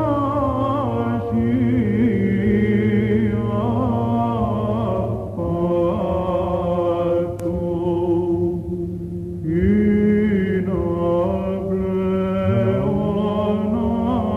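Greek Orthodox Byzantine chant: male voices singing a slow, ornamented melody over a held low drone, with a brief pause a little past the middle.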